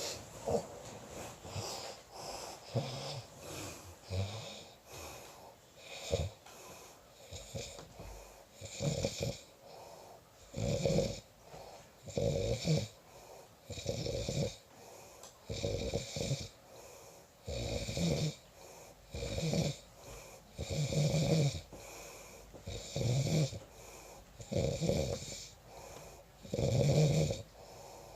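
Snoring in a regular rhythm, a loud snore about every one and a half to two seconds after a quieter, uneven stretch in the first several seconds.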